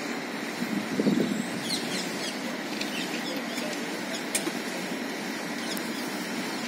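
Steady outdoor background noise with faint, high bird chirps every second or so, and a brief louder rustle about a second in.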